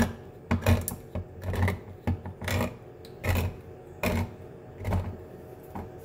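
Hand-held manual can opener being cranked around a soup can, in a series of short grinding strokes, roughly one every two-thirds of a second, that thin out near the end.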